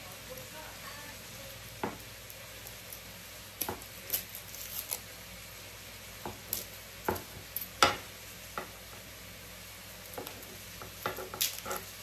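Garlic cloves being peeled by hand and with a knife: dry papery skins crackling and rustling, with scattered small clicks and taps of the knife and cloves on a marble cutting board over a steady low hiss.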